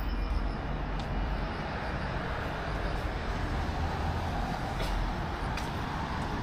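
Steady rumble and hiss of passing vehicles, with a few faint clicks.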